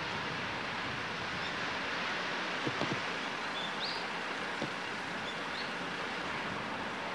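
Steady rushing noise of a gas-turbine jetfoil running slowly hull-borne through the harbour, with a few light knocks about three seconds in.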